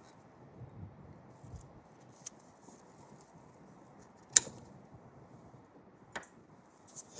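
Cable cutters snapping through a copper battery cable: one sharp, loud snap about four seconds in, a lighter click a couple of seconds later, and quiet handling noise around them.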